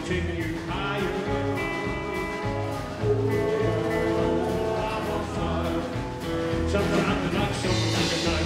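Rockabilly band playing live: strummed acoustic guitar over drums with a steady beat.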